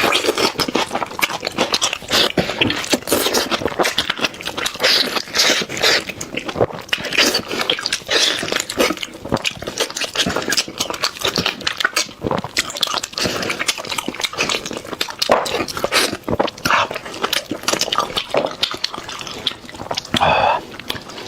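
Close-miked mouth sounds of someone eating beef trotter: chewing, lip-smacking and sucking, a dense run of quick clicks and smacks.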